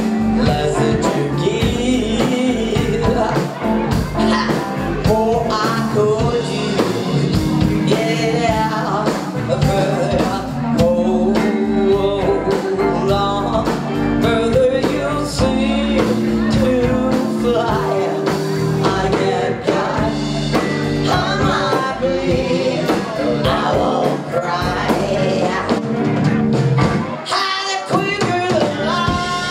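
Live rock band playing, a woman singing lead over electric guitars and drums.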